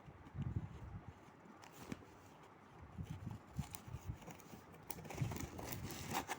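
Hands handling boxes and packaging: irregular soft knocks and thuds, then a stretch of rustling in the last second or so, ending in a sharp click.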